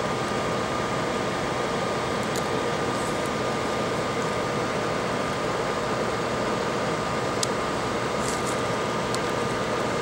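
A fan or blower running steadily, a constant whirring with a thin steady whine, and a few faint small clicks of handling over it.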